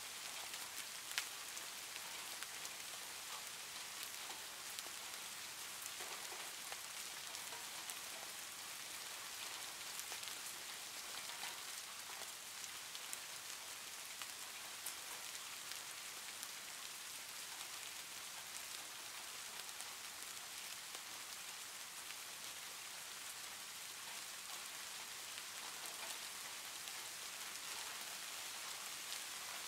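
Soft rain ambience: a steady hiss of falling rain with scattered faint drip ticks, and one sharper click about a second in.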